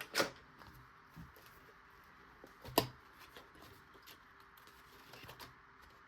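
Paper and craft materials handled on a desk as a trimmed print is set onto a journal page: light rustles and small clicks, with two sharper knocks, one just after the start and a louder one a little before halfway.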